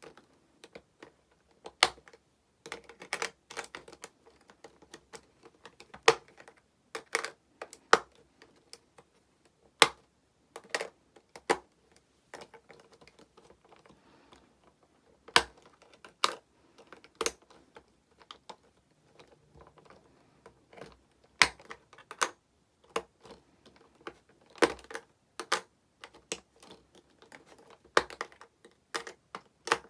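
Hard plastic toy pieces and a plastic case being handled: irregular sharp clicks and clacks, sometimes in quick clusters, with faint rustling between them.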